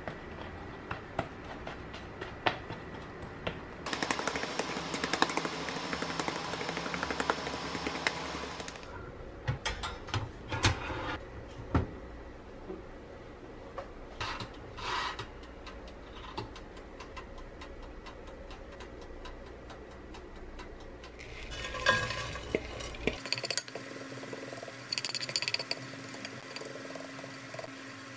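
A wooden spoon pressing and scraping oat granola on a metal baking tray, a dense crunchy scraping for several seconds, with scattered clicks and knocks of kitchenware. Near the end, a wooden spoon stirring granola in a frying pan.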